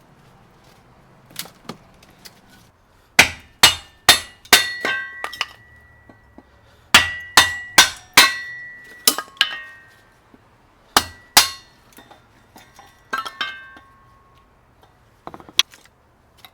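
Kindling being split with a hatchet for a smoker fire: sharp chopping strikes that ring like metal, in runs of two to four at about two a second, with short pauses between runs.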